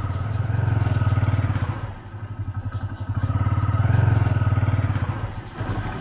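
Motorcycle engine running as the bike rides along. Its steady, pulsing note eases off about two seconds in, swells again near four seconds, then falls away near the end.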